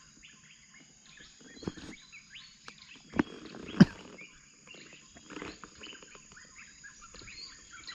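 Dawn chorus of many birds chirping over a steady high insect drone. Three sharp knocks come between about two and four seconds in, the last the loudest.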